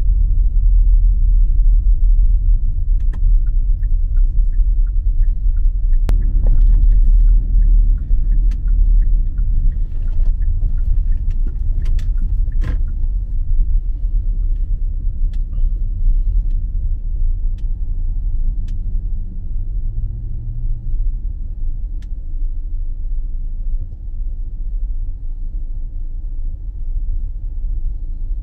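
Low, steady rumble of a car driving, heard from inside the cabin, easing a little about halfway through, with a few sharp clicks.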